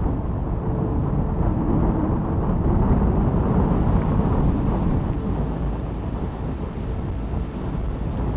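Strong wind buffeting the microphone: a loud, low rumble that wavers with the gusts.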